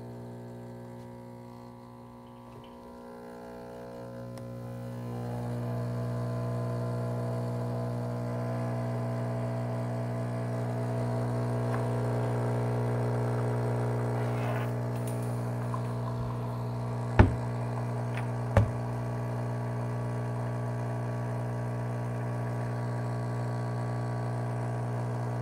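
Espresso machine's pump running with a steady hum while a shot is extracted, growing louder about four seconds in. Two sharp clicks about a second and a half apart late on.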